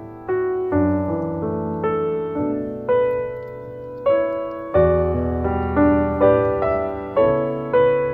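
Background piano music: a slow, gentle tune of notes and chords struck about once or twice a second, each fading away.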